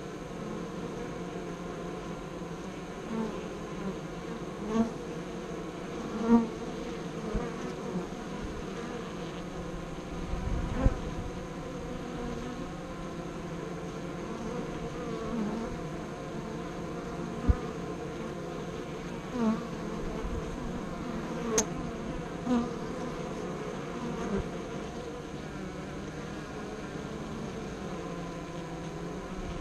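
Honey bees buzzing at a hive entrance: a steady hum of many bees, with louder buzzes every second or two as single bees fly close past. A few sharp clicks stand out, about a third of the way in and again past the middle.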